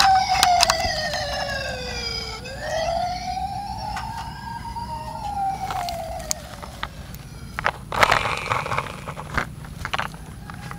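Toy fire truck's battery-powered electronic siren wailing: the pitch slides down, swoops back up, falls again and fades out about seven seconds in. Then come several sharp plastic clicks and rustling as the toy trucks are handled.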